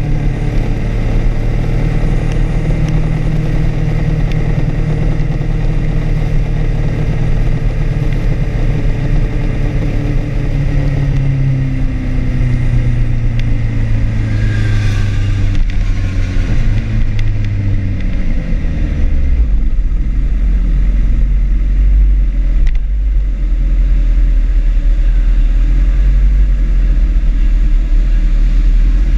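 Sportbike engine running at low revs as the bike rolls slowly, its note sinking gradually. About two-thirds of the way in it settles to a steady idle.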